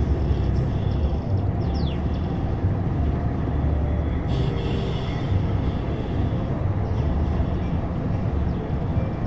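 Steady engine and tyre rumble of a vehicle driving at speed, with a brief higher hiss about four seconds in.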